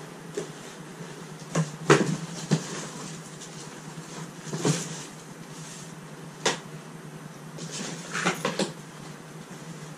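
Handling and packing things into a cardboard box: scattered knocks and rustles, with sharper knocks about two seconds in and again near five and six and a half seconds, then a quick cluster of clattering near the end as things are taken from a plastic storage container.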